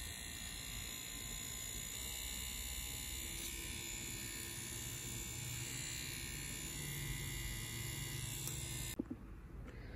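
FK Irons Xion rotary tattoo pen running on its wireless battery pack: its 6 W motor gives a steady electric buzz that cuts off abruptly about nine seconds in.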